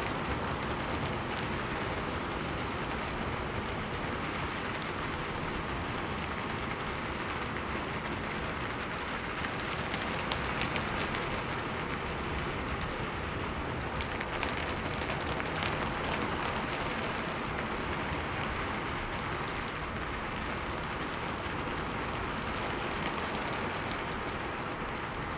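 Steady rain falling on a rooftop: an even, continuous hiss with scattered sharper ticks of individual drops.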